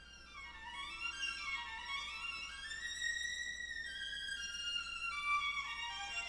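Classical music played back through Eosone RSF-1000 4-way loudspeakers: a violin melody climbs in steps to a high held note, then steps back down.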